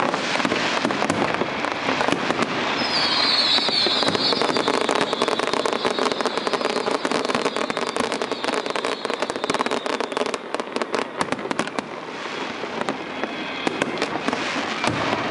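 Aerial firework shells bursting in rapid succession: a continuous stream of pops and crackling, with a brighter crackle about three seconds in.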